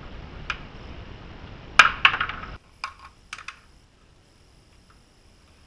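Plastic push-in body-cladding clips being pried off the rocker panel with a trim removal tool, giving sharp plastic clicks and pops. A loud cluster of clicks comes about two seconds in, then a few lighter single clicks. The steady background hiss cuts off partway through.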